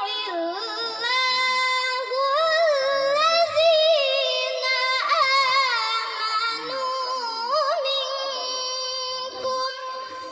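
A young girl's voice reciting the Quran in melodic tilawah style. It is one long drawn-out phrase, held mostly on one high note, with wavering ornaments and pitch slides, and it dies away near the end.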